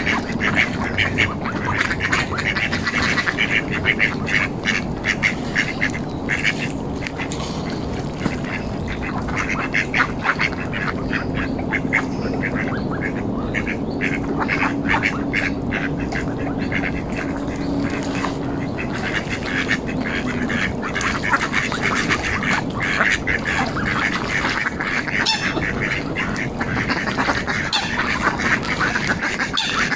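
Ducks quacking in many quick, repeated calls, over a steady low background rumble.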